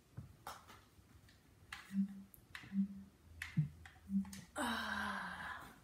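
Scattered knocks and clicks of a person moving about on a wooden floor, handling a hand puppet and sitting down. Three brief low hummed notes and a second-long breathy sound come in the second half.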